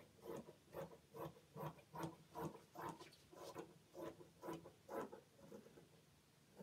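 Large fabric scissors cutting through cloth: a steady run of snips, about two and a half a second, growing fainter and stopping about five and a half seconds in.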